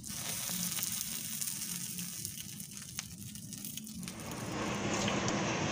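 Small fire on a burning plastic toy airplane, crackling and sizzling with scattered sharp pops. From about four seconds in a louder, fuller hiss builds up.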